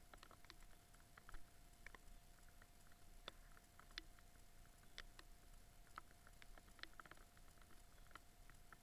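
Near silence with faint raindrops tapping irregularly, a few to several ticks a second, over a faint steady whine.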